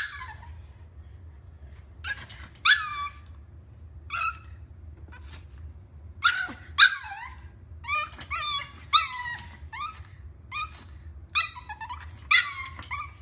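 Pug puppy giving short, high-pitched yips and small barks, about a dozen, irregularly spaced and some in quick pairs, over a steady low hum.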